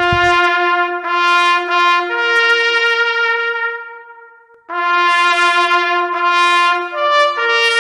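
A solo trumpet playing a slow bugle call in long held notes: it steps up to a higher note about two seconds in, breaks off for about a second midway, then starts again and climbs briefly to a top note before settling near the end. A short low rumble fades away at the very start.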